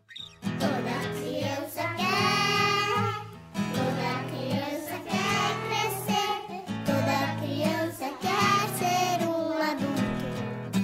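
A children's song: a voice singing a melody with held, wavering notes over acoustic guitar accompaniment, with a short break in the singing about three and a half seconds in.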